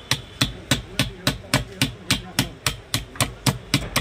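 Steady metal tapping, about three and a half strikes a second, as a hand tool is knocked against the fan end of a monoblock water-pump motor being taken apart.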